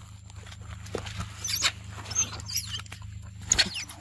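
Young macaques giving several short, high-pitched squeaky calls that slide downward in pitch.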